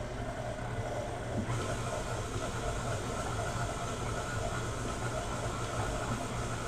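KitchenAid stand mixer running steadily with a dough hook, kneading bread dough: a steady motor hum with hiss, which grows brighter about a second and a half in.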